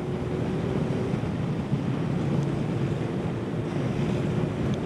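Wind rushing over the microphone of a moving motorcycle, with the engine running steadily underneath.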